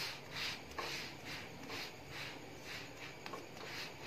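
Wooden spatula pressing and rubbing a roti-style flatbread around a dry nonstick tawa, making faint repeated swishing scrapes at about two strokes a second.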